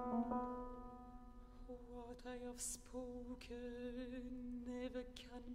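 A contralto voice singing softly on low held notes with a slow vibrato, as a piano chord dies away in the first half second. There are two short hisses of breath or consonant along the way.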